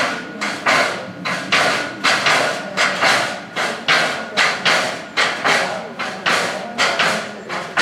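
Hippopotamus repeatedly banging against the barred metal door of its enclosure, about two loud knocks a second, each ringing out briefly. The hippo is demanding that the door be opened.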